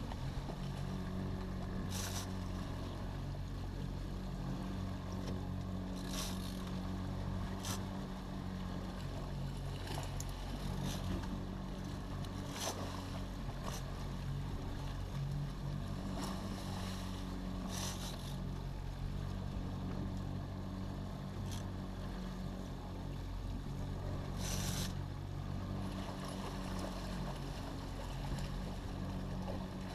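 A boat's outboard motor running steadily, with water rushing past the hull and a few brief hissing splashes now and then.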